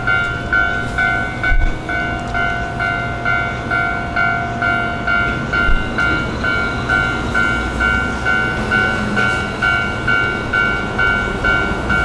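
Japanese level-crossing warning bell ringing in a steady clang-clang about twice a second. Under it is the low rumble of a large double-trailer haul truck crossing the road.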